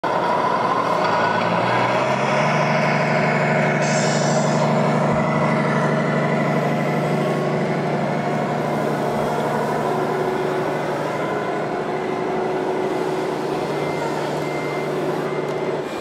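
Scale RC semi-truck's sound module playing a steady diesel-engine running sound, with a brief hiss about four seconds in.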